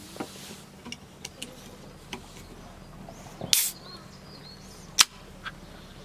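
A series of sharp clicks and knocks at irregular intervals, with a louder clatter about three and a half seconds in and a single sharp crack about five seconds in.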